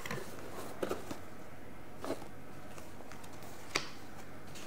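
Cardboard box flaps being opened and paper leaflets handled: a few short rustles and taps, the sharpest near the end, over a faint steady room hiss.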